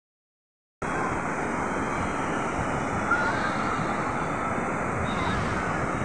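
Ocean surf: waves breaking and shallow water washing in over sand and rocks, a steady rushing that starts about a second in.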